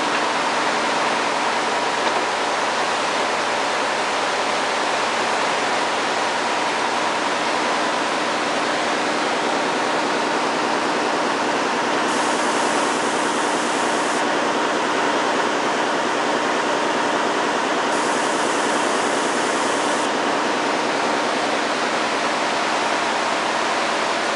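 Weaving looms in a mill running at full speed: a loud, steady, dense mechanical din with a faint constant hum. Twice, about halfway through and again later, a higher hiss rises over it for about two seconds.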